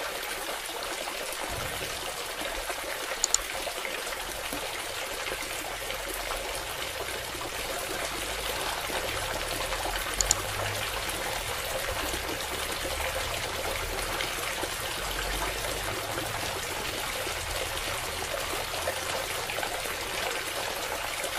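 A steady stream of water pouring from a DIY mini submersible pump's outlet pipe and splashing onto wet soil. Two short clicks come through, about three seconds and ten seconds in.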